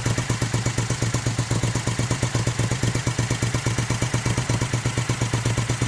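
1971 Moto Guzzi Ambassador's air-cooled 90° V-twin, freshly rebuilt and bored out to about 950 cc, idling steadily with an even exhaust pulse on its first fire-up. The motor is still tight on new rings, and the mixture screws sit far out, a sign that the jetting is a little lean.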